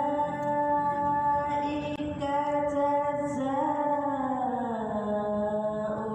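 A single voice reciting the Quran in melodic tilawah style, drawing out long held notes. About two-thirds of the way through, the pitch slides slowly downward.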